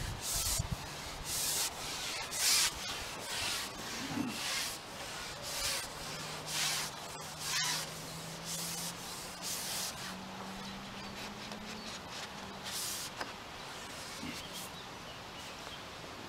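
A fishing pole being handled while a hooked fish is played: short scratchy rubbing sounds, about one a second, which die away near the end.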